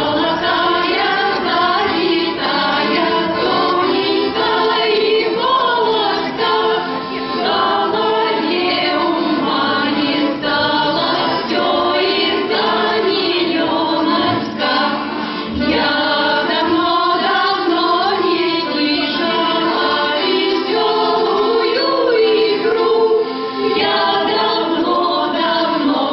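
A choir of voices singing a song, with instrumental accompaniment.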